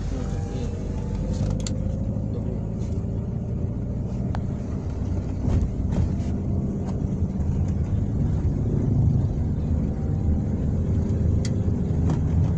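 Car running at a steady speed, heard from inside the cabin: a low engine and road rumble with a faint hum and a few light clicks.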